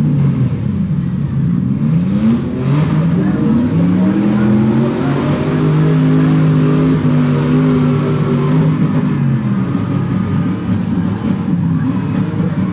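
Demolition derby cars' engines revving under a steady engine rumble. One engine climbs in pitch over about two seconds, holds high for several seconds in the middle, then drops back.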